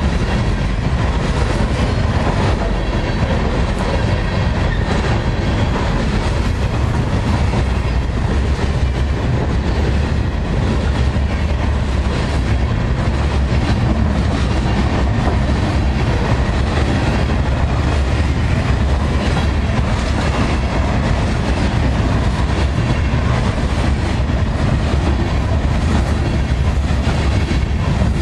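Ballast hopper cars of a freight train rolling past: a steady deep rumble of steel wheels on rail, with a constant run of clicks and knocks from the wheels and cars.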